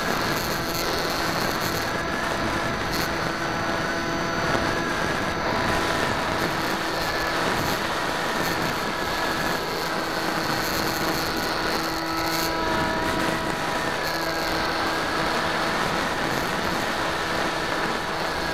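Electric motor and propeller of a Bixler 2 RC foam plane, heard from its onboard camera in flight: a steady whine whose pitch rises and falls several times with the throttle, over wind rush.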